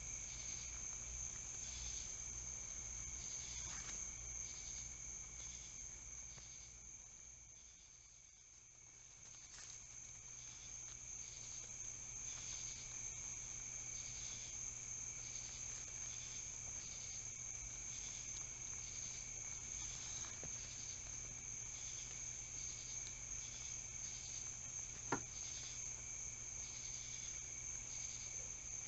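Crickets chirping: a steady high-pitched trill with a slower, regular pulsed chirping over it, fading briefly about eight seconds in. A single sharp click sounds near the end.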